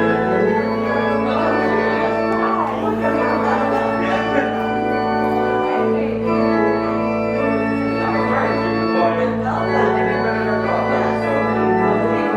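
Organ playing a slow piece of long held chords over a sustained bass, the chord changing every few seconds.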